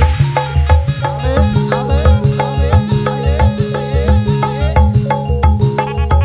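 Instrumental passage of live street dangdut music: a steady beat of low drum thumps about twice a second under a busy melody of short pitched notes, with no singing.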